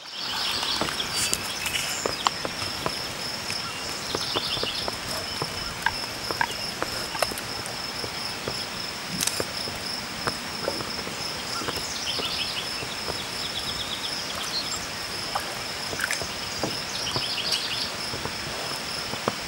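Insect trilling steadily, high-pitched and pulsing, typical of a cricket, with a few short runs of quicker chirps. Scattered small clicks and splashes from a small dog wading in shallow water at a rocky shore.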